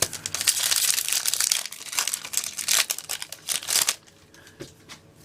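Foil Pokémon TCG booster pack wrapper crinkling as it is handled and opened, a dense crackle for about four seconds that then drops to a few faint crackles.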